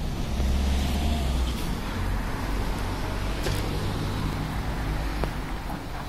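A car engine's low rumble on the street, amid traffic noise.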